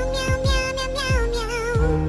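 Background music: a long held high melody note that wavers near the end, over a kick-drum beat.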